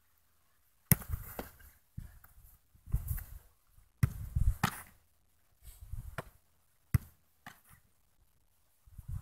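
Football kicks and ball impacts: a sharp thud about a second in, more at about four and seven seconds, with bouts of low rumbling noise between them.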